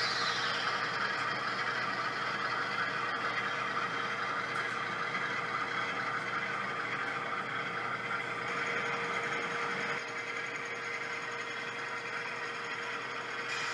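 HO scale model diesel locomotives running on track, their sound decoders playing a steady diesel engine sound, with the hum of the models' motors and wheels. It drops a little in level about ten seconds in.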